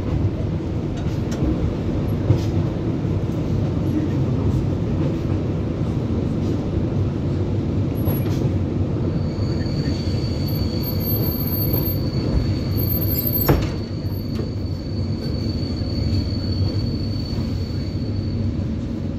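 ED9MK electric multiple unit running on the rails, heard from inside a passenger car: a steady rumble of wheels with a few short knocks, one sharp knock about two-thirds through, and a steady high squeal that sets in about halfway and fades near the end.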